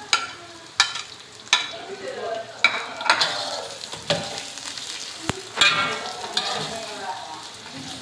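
Sliced onions and aromatics sizzling in hot oil in a steel wok, stirred with a spatula that scrapes and knocks against the pan about once a second.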